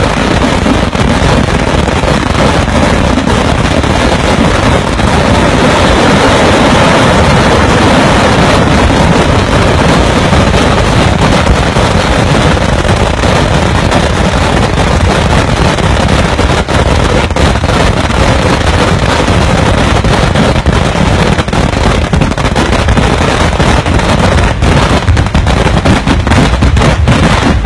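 Temple fireworks going off in a dense, continuous barrage of crackles and bangs, loud throughout.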